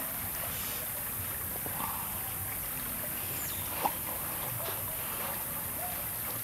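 Chopsticks tearing and lifting pieces of a pan-fried omelet from a frying pan, with one sharp click against the pan a little under four seconds in, over a steady background hiss.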